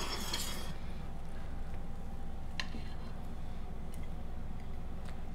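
A serving spoon scooping chicken and rice casserole out of a pan, a short soft scraping, followed by two light clicks of the spoon against the dish, the second sharper near the end, over a low steady hum.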